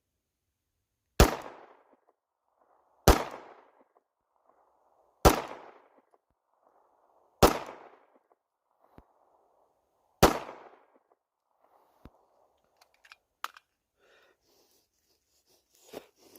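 Five shots from a Beretta 92FS Compact 9mm pistol, the first four about two seconds apart and the fifth after a slightly longer pause, each with a short decaying tail. Several faint clicks follow near the end.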